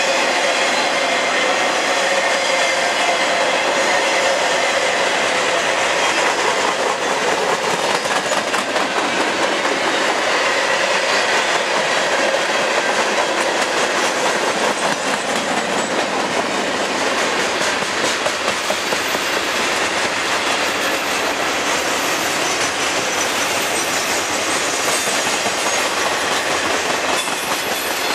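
Freight cars of a mixed freight train rolling past close by, non-stop. The steel wheels clatter steadily over the rail joints.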